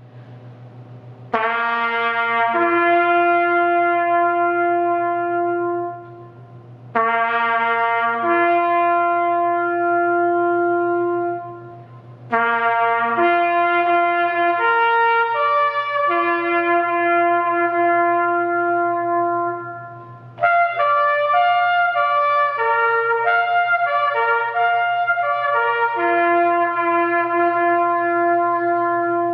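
A solo trumpet plays a slow call in long held notes, in four phrases separated by short pauses, over a steady low hum.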